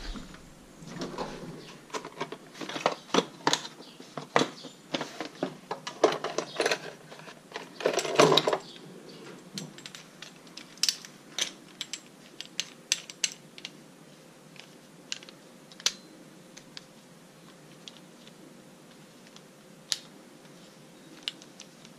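Metal hand tools and sockets clinking and clattering while being sorted out to torque the wheel lug nuts. The clatter is busy for about the first nine seconds, then thins to scattered single clicks.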